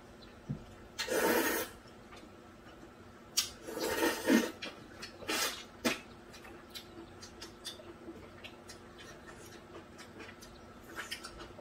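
Noodles in cold soybean soup being slurped up with chopsticks, three loud slurps in the first six seconds, followed by quieter small clicks and mouth sounds of eating.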